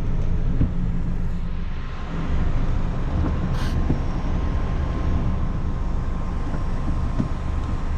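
Steady low rumble of a car being driven, engine and road noise heard from the driver's seat.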